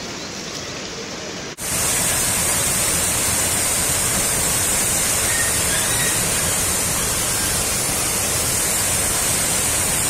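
Running water splashing from a trickling spring for about a second and a half, then an abrupt change to the louder, steady rush of a small waterfall pouring into a pool.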